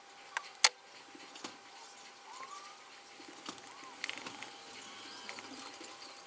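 A few sharp clicks and taps from hands handling a wood root lamp while its power cord and base are fitted, the loudest about half a second in. Faint short rising chirps and a faint steady tone sit under it.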